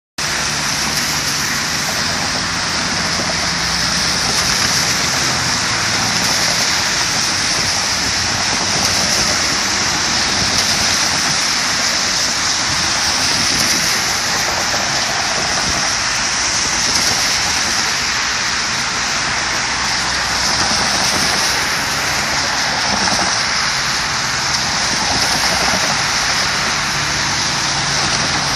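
Steady hiss of car tyres on a wet, slushy road, swelling and easing gently as cars pass.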